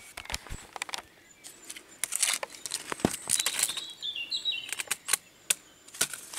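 Footsteps crunching on loose gravel in irregular steps, with a bird singing a short phrase of falling notes about four seconds in.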